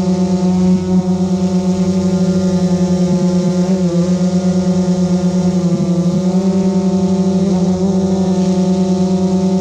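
GoPro Karma quadcopter's motors and propellers humming steadily, heard close up from the camera mounted on the drone itself: one even, droning tone with a fast flutter, its pitch wavering briefly twice as the drone adjusts.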